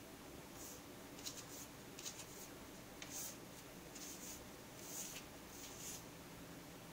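Siamese cat's paws scratching and swiping at the desk mat around a glass food bowl in a run of short, faint, irregular scratches. This is the pawing cats do to cover up food they reject.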